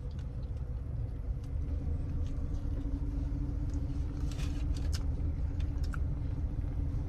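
Low steady rumble of an idling car, with a faint steady hum joining about two seconds in and a few faint clicks and rustles.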